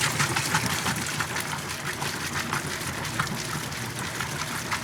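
Kenmore washing machine running, with a steady rush and splash of water in its tub.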